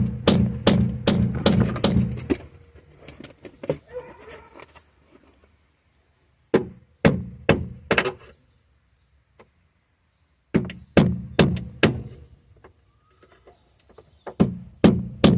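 A tool working a Torx bolt on the Jeep Wrangler TJ's body: four runs of sharp metallic clicks, several a second, with short pauses between.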